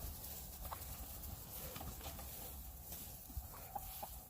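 Chickens clucking softly now and then, over a low steady rumble.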